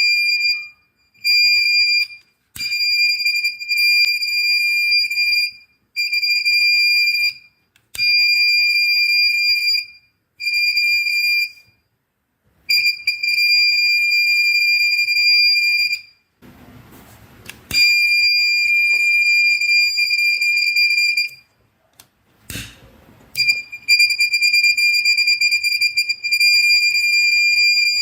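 Buzzer of a homemade fire alarm circuit sounding: a steady high-pitched tone that keeps switching on and off, in stretches of one to three seconds with short gaps, as the alarm is set off. Two short bursts of noise come in the longer gaps.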